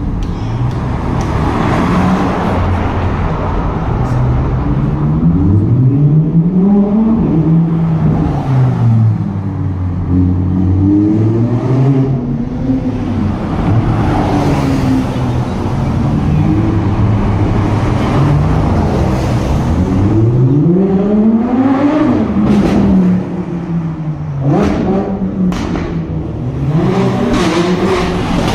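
Sports cars, among them a white BMW and a Porsche 911, driving past one after another, their engines revving up and down several times. Near the end come a few sharp cracks, likely exhaust pops.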